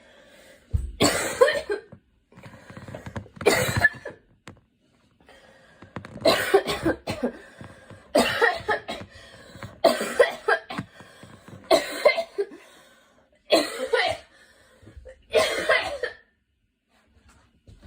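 A girl coughing repeatedly in short fits, some of two or three coughs in quick succession, one fit every two seconds or so; the coughing stops near the end.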